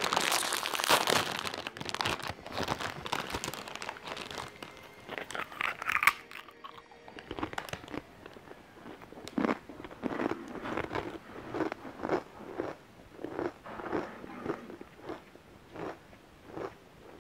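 A crinkly plastic crisp packet rustles and crackles as it is opened and handled. Then crisps are crunched and chewed in a steady rhythm of about one and a half chews a second.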